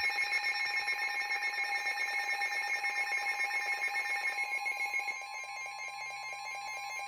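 Weather radio sounding a warning alert: the steady NOAA Weather Radio 1050 Hz alarm tone with the receiver's own alarm beeping rapidly over it. The beeping changes pattern and gets quieter about five seconds in.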